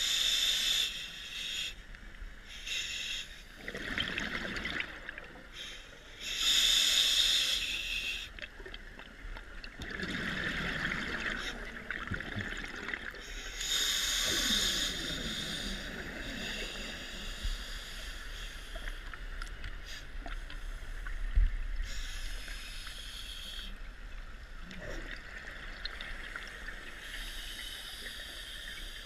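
Scuba diver breathing through a regulator underwater: a hissing inhalation every six or seven seconds, each followed by the bubbling rush of exhaled air.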